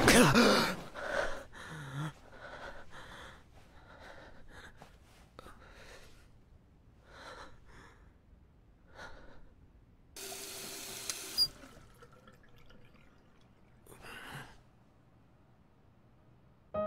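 A young man's sharp, loud gasp as he jolts awake from a nightmare, followed by a run of heavy, uneven breaths that grow fainter over several seconds. About ten seconds in comes a steady rushing noise lasting a second or so.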